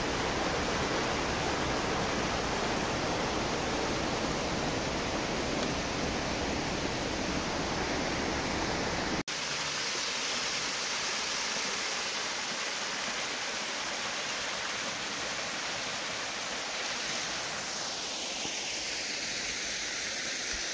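Steady rush of water over a rocky stream bed; about nine seconds in it cuts to the splash of a small waterfall pouring into a pool, with less low rumble and more hiss.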